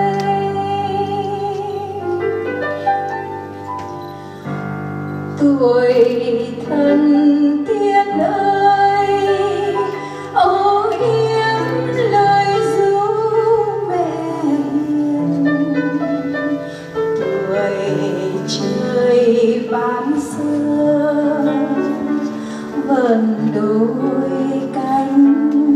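A woman singing a ballad into a microphone, holding notes with vibrato, accompanied by a grand piano.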